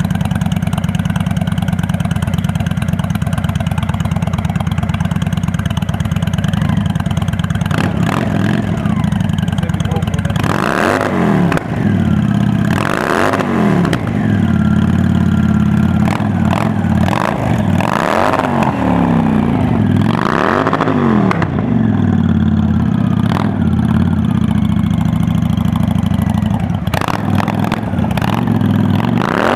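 Honda Black Widow 750's V-twin engine idling through a Cobra aftermarket exhaust, then revved in short throttle blips from about ten seconds in. Each blip rises and falls in pitch, about six times.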